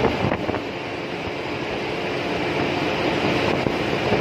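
Steady, dense machinery noise of a bulk carrier's engine room, an even din of running machinery with no single event standing out.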